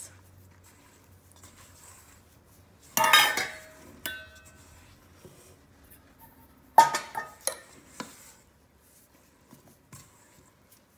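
Thick cookie dough being stirred with a silicone spatula in a stainless steel mixing bowl: two loud clanks of the bowl, each ringing briefly, about three and seven seconds in, then a few softer knocks.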